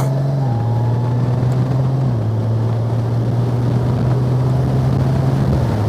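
Motorcycle engine running at road speed. Its note steps down in pitch about half a second and again two seconds in, over wind noise on the helmet microphone.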